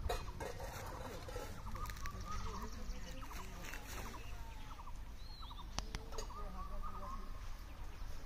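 Outdoor ambience of birds chirping and trilling in short calls over a low steady rumble, with a few sharp clicks.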